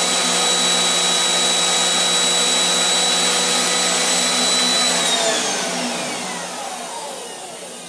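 Vacuum cleaner motor running loudly with a steady high whine, then switched off about five seconds in: the whine falls in pitch and the motor winds down.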